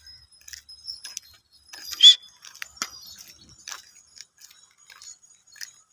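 Small metal bells on goats' necks tinkling irregularly as the herd walks, with a brief louder sharp sound about two seconds in.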